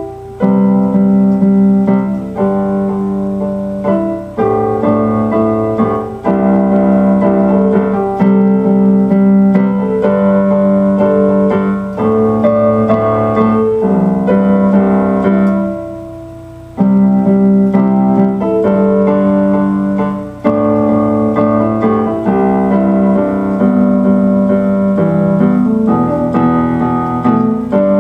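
Keyboard music: piano-like chords held and changed every couple of seconds, with a brief drop-out about sixteen seconds in.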